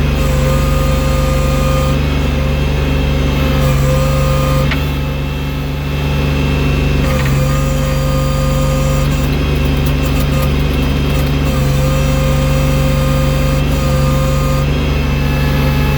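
Engine of a snow-clearing loader running steadily, with a steady whine that comes and goes over it; the sound dips briefly about five seconds in.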